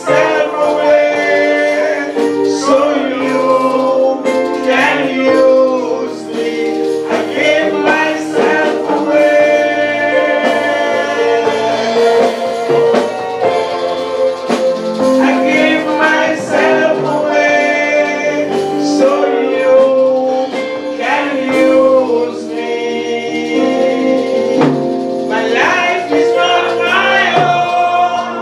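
A church congregation of men and women singing a gospel worship song together.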